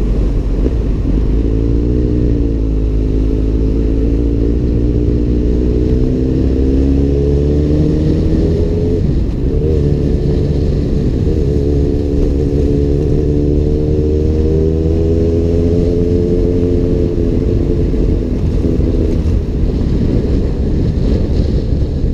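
Kawasaki Z800's inline-four engine breathing through an Arrow aftermarket exhaust under way. Its pitch climbs slowly, dips briefly about nine seconds in, climbs again, then falls away near the end as the throttle eases off.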